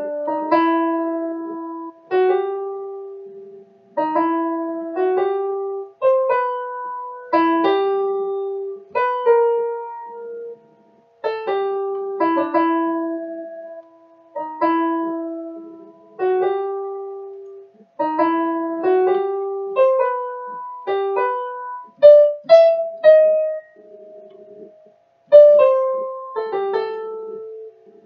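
Electronic keyboard played in a piano voice: a slow, simple melody of single struck notes that die away, in short phrases of a few notes separated by brief pauses.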